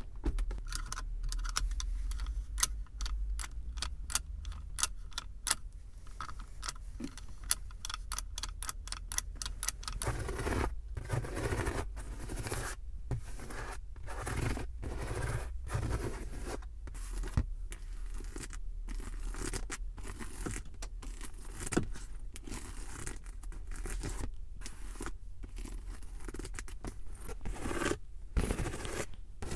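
ASMR tapping and scratching on a car's surfaces: quick runs of sharp taps for about the first ten seconds, then rubbing and scratching strokes with short pauses between them, over a steady low rumble.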